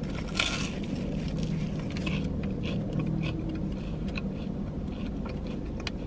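Biting into a crisp fried beef and cheese pastel, with a sharp crunch about half a second in, then chewing it with many small crunches.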